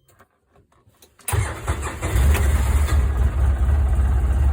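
Polaris Ranger 800's twin-cylinder engine cold-starting: a few faint clicks, then the engine catches abruptly a little over a second in and runs on steadily at idle.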